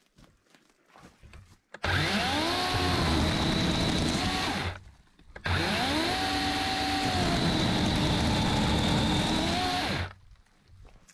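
Chainsaw cutting juniper limbs in two runs. It starts about two seconds in with a rising whine, stops for under a second, then runs again for about five seconds and cuts off suddenly.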